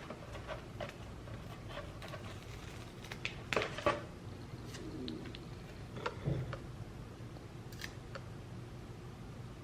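Small handling sounds of labelling glass spice jars: scattered light clicks, taps and rustles of the label sheet and jars, loudest in a cluster about three and a half seconds in and again near six seconds.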